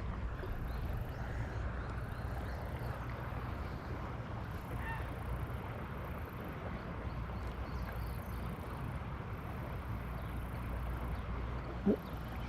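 River water running steadily, with a low rumble underneath. A short pitched sound comes about half a second before the end.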